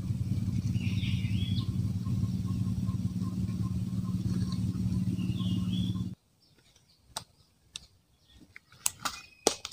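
A steady engine drone with bird chirps over it, cutting off suddenly about six seconds in; after that, only a few faint clicks and taps.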